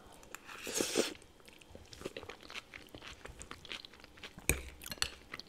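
Close-miked chewing of crunchy vegetable salad: a run of wet crunches and mouth clicks, busiest about a second in, with one louder sharp crunch about four and a half seconds in.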